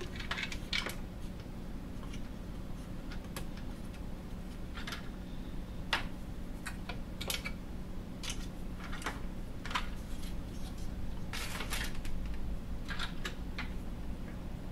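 Plastic clicks and taps at irregular intervals as the plastic rear cover of a tumble dryer's control unit is wiggled off its clips.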